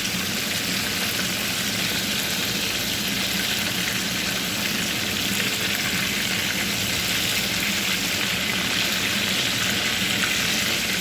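Chicken pieces frying in hot oil in a pot, browning: a steady sizzle.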